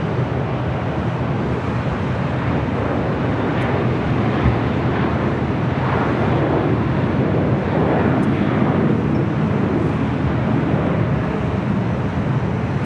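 Jet aircraft engine noise: a steady low rumble with a broad roar above it, swelling a little about halfway through.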